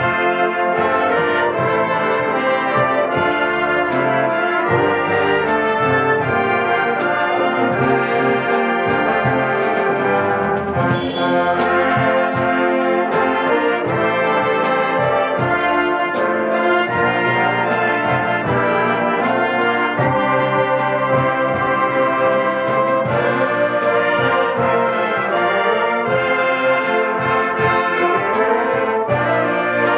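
Live fanfare band of saxophones, flugelhorns, trumpets, euphoniums and tubas playing full sustained chords in a concert piece, with percussion keeping a regular beat.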